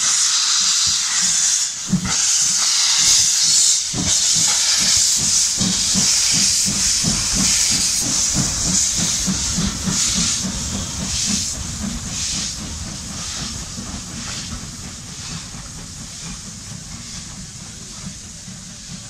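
USATC S160 2-8-0 steam locomotive moving off with its cylinder drain cocks open: a loud hiss of steam pulsing with the exhaust beats, the beats quickening. The sound fades over the last several seconds as it moves away.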